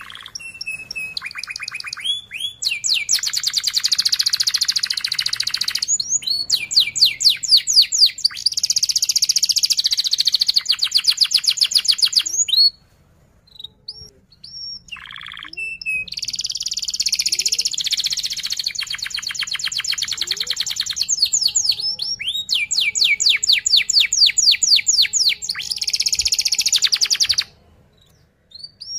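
Domestic canary singing a fast rolling song ("ngerol"): long trills of rapidly repeated high notes in phrases several seconds long. The song breaks off for a few seconds about halfway through, with only a few single notes, and pauses briefly again near the end.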